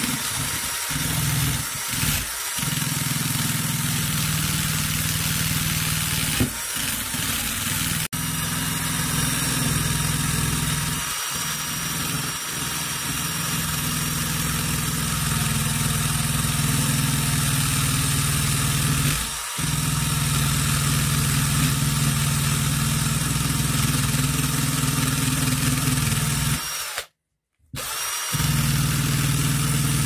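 A power tool running steadily while the rotor of an electric fan motor is cleaned, with a few brief dips and a short break near the end.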